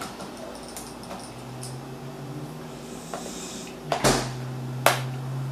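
Faint clicks and small knocks from handling a tablet and a small Phillips screwdriver while unscrewing its back, with a louder knock about four seconds in and a sharp click just under a second later, over a low steady hum.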